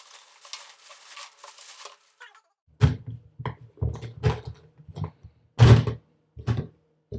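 Plastic self-watering plant pot parts being handled: a faint scraping rustle, then a string of irregular thunks and knocks as the pieces are pulled apart and set down.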